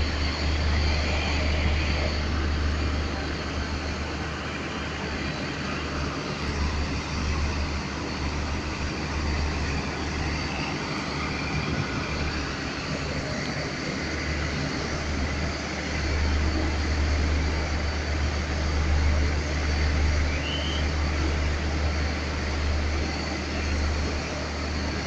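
Diesel multiple-unit passenger train's engines running with a steady low hum beside the platform as the train starts to pull away.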